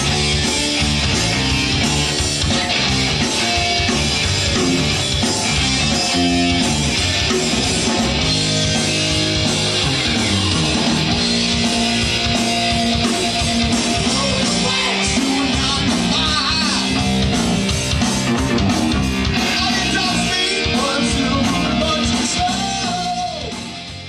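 Rock band playing live at a sound check: electric guitars, bass and drums running a song together, fading out near the end.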